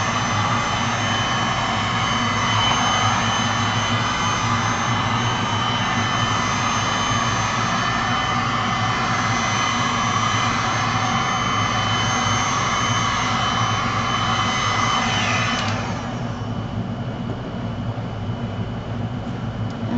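Electric heat gun blowing steadily on its high fan setting, switched off about three-quarters of the way through, after which only a lower steady hum remains.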